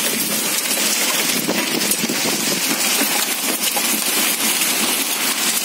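Hailstorm: thick hailstones and rain pelting the road and a concrete step, a dense, steady patter of many small hard hits.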